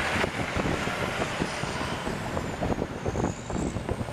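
Train rolling past with a steady rumble and irregular clatter of wheels on rail, plus wind buffeting the microphone. A faint high squeal slides up and down over it.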